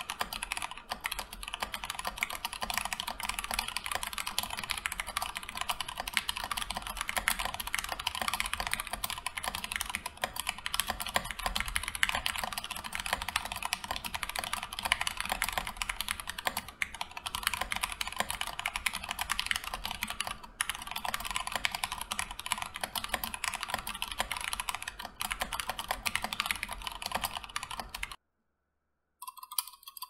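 Fast, continuous typing on a stock, unmodified Keychron K2 version 1 mechanical keyboard: a dense stream of key clacks that stops suddenly near the end.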